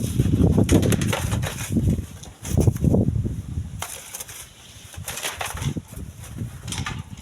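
Strong gusty wind buffeting the microphone, coming in surges with a lull about four seconds in, and light crackling and rustling between the gusts.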